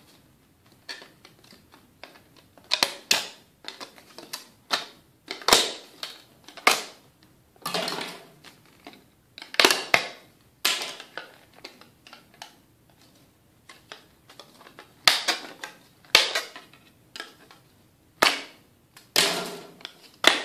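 Plastic armor trim being cut: an irregular series of sharp cracks and short scrapes as a blade runs along the plastic and the scored edge pieces are snapped off.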